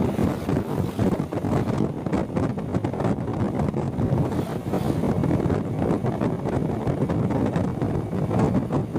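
Wind buffeting the microphone of a moving motorcycle, mixed with road and traffic noise, loud and steady.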